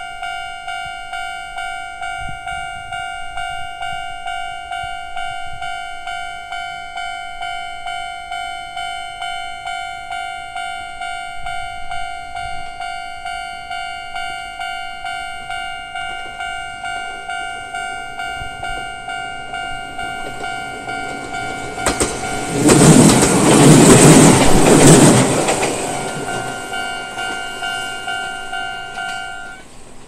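Electronic railway-crossing warning bell in the old standard tone, dinging rapidly and steadily while the crossing is closed. An electric train passes through the crossing with a loud rush of wheel and rail noise about 22 to 25 seconds in. The bell stops just before the end, as the crossing clears.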